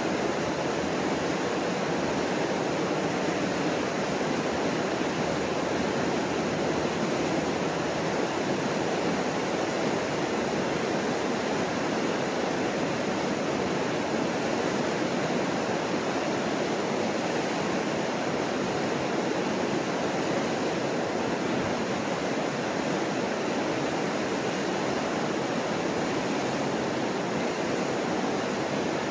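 Mississippi River rapids: whitewater pouring over a broad low falls in the river, a steady, unbroken rushing.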